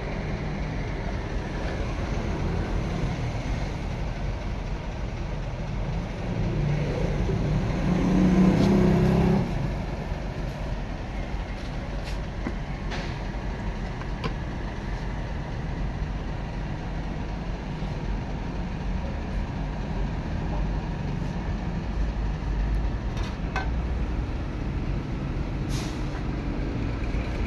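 Steady low rumble of street traffic, with a louder engine passing about seven to nine seconds in, and a few light clinks of steel utensils.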